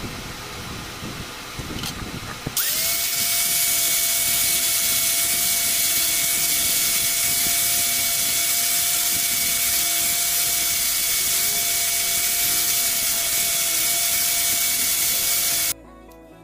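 HiKOKI angle grinder switched on about two and a half seconds in: its motor whine rises quickly to a steady pitch. It then grinds the edge of a strip of used bandsaw blade steel with a loud, even hiss, and cuts off suddenly near the end.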